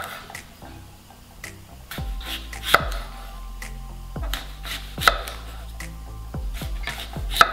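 Kitchen knife cutting through an apple and knocking on a wooden cutting board: a series of sharp knocks a second or two apart. Background music comes in about two seconds in.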